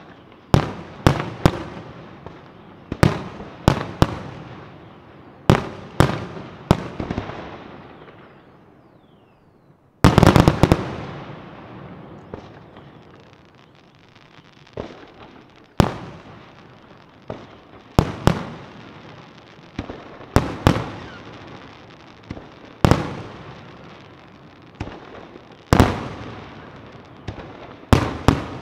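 Fireworks exploding in a display: loud, sharp bangs at irregular intervals, each echoing away. After a short lull, a rapid cluster of bangs comes about ten seconds in.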